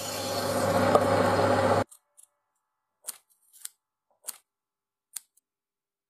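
Metal lathe running and cutting a brass workpiece, steady and loud, stopping abruptly about two seconds in. After it, only a few faint short clicks and rustles of small hand work follow.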